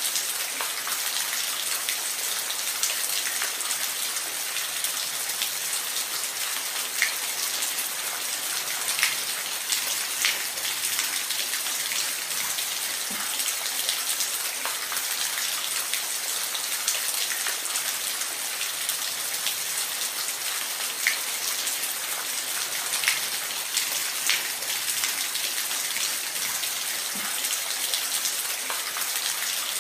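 Steady rain falling, a constant hiss with scattered individual drops ticking out over it now and then.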